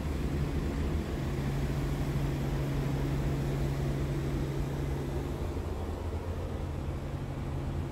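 Scania P truck's diesel engine idling steadily, heard from inside the cab as a low, even hum.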